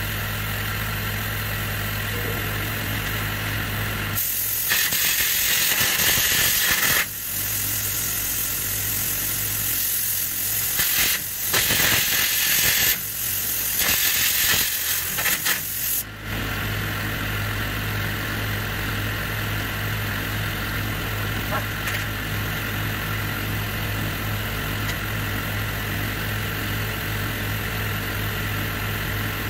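Air carbon arc gouging with a carbon rod: several runs of loud, harsh hissing from the arc and the compressed-air blast, from about four to sixteen seconds in. A steady hum from the welding machine runs underneath throughout.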